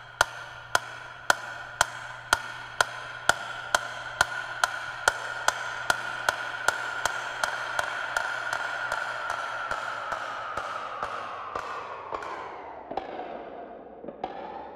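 Electronic title-sequence sound design: a steady ticking of sharp clicks, about two a second, coming faster and fading, over a held tone that sinks in pitch near the end.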